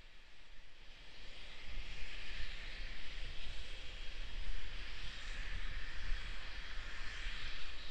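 Steady rushing hiss of propellant vapor venting from the Starship SN10 prototype and its launch mount near the end of propellant loading, over a low fluctuating rumble; the rush swells about a second and a half in.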